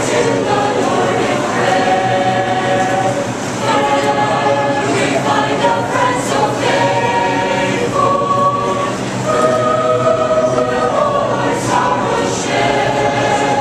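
Mixed choir of men and women singing a cappella, holding long notes in phrases.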